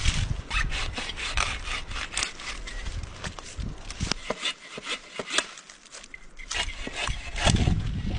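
Hand saw cutting firewood: quick rasping back-and-forth strokes, about three a second, easing off briefly a little past the middle. Wind buffets the microphone with a low rumble.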